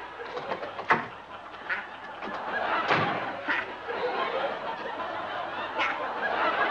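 A door shuts with a sharp knock about a second in, and a heavier thump follows about two seconds later. Studio audience laughter builds and carries on after them.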